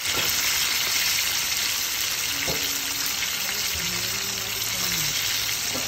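Battered chicken pieces deep-frying in hot oil: a steady sizzle of oil bubbling around the pieces.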